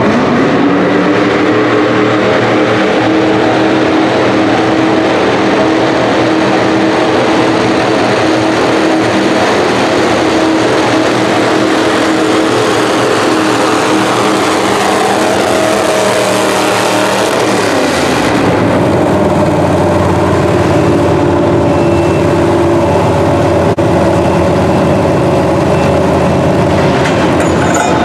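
Pro Stock Mini pulling truck (Chevy S-10) running flat out on open hood-stack exhausts while it drags the pulling sled, a loud steady engine note throughout. The note changes about two-thirds of the way through the pull.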